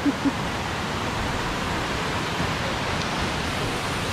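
Steady rush of water from a waterfall and mountain river. At the very start a person's voice is heard briefly.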